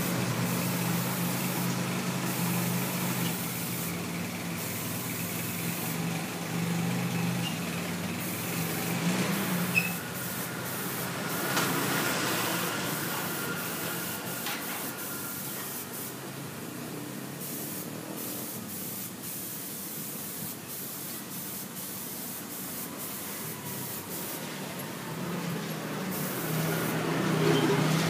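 Airbrush hissing in many short bursts as the spray is triggered on and off, over a steady low hum that fades about ten seconds in and returns near the end.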